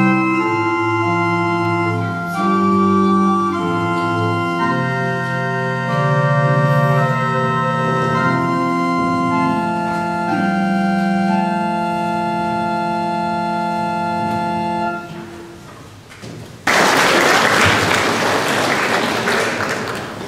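Church pipe organ playing held chords that change every second or two, fading out about fifteen seconds in. About a second and a half later a sudden loud wash of noise starts and slowly dies away.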